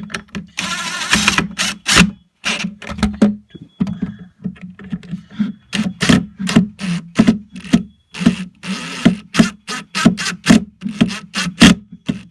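Screws being driven into a speaker cabinet with a screwdriver bit: a run of clicks, knocks and scrapes, with two longer rasps of about a second each, over a steady low hum.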